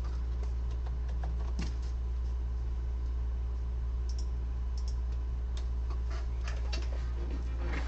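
Scattered keystrokes and clicks on a computer keyboard, over a steady low electrical hum.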